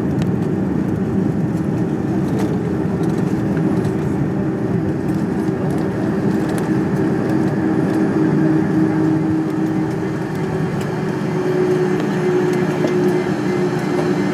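Cabin noise of an Airbus A310-300 during landing, heard from inside the cabin: a loud, steady rumble with a steady engine hum that grows stronger in the second half.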